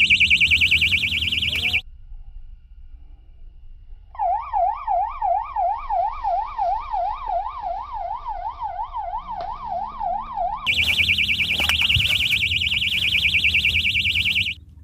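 Electronic siren-style alarm sounding in three patterns: a fast, high warble for about two seconds, then after a short gap a slower, lower wail rising and falling about three times a second, then the fast high warble again for about four seconds before it cuts off sharply.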